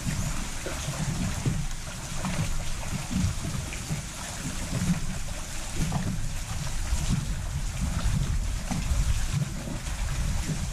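Wind buffeting the microphone in an uneven low rumble, with water lapping against the bass boat's hull.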